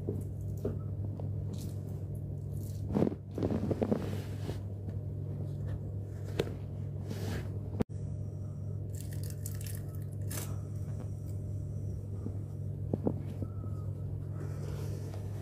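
Steady low hum with scattered rustling, scraping and light knocks of a phone being handled with its lens covered, busiest about three to four seconds in; the sound drops out for an instant about eight seconds in.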